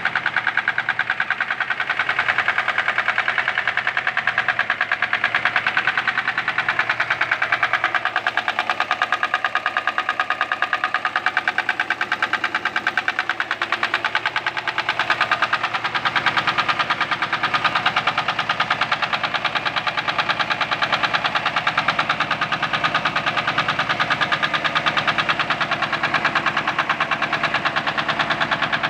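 Mercedes-Benz M119 4.2-litre V8 running steadily with a rapid, regular knock in time with the engine.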